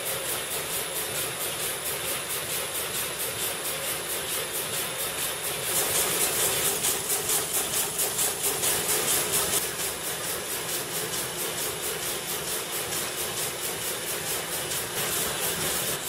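Needle loom weaving narrow tape, running with a fast, even clatter of several beats a second. It grows louder for a few seconds in the middle.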